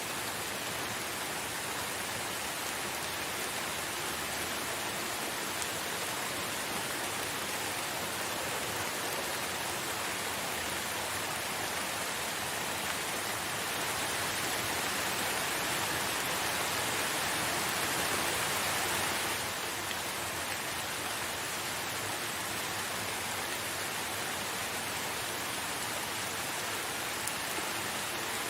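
Steady rainfall, an even hiss of falling drops. It grows a little louder about halfway through, then drops back abruptly about two-thirds of the way in.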